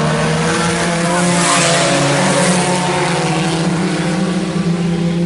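A field of IMCA Sport Compact race cars running at speed around a dirt oval, several engines heard together, swelling in noise about two seconds in as the pack passes.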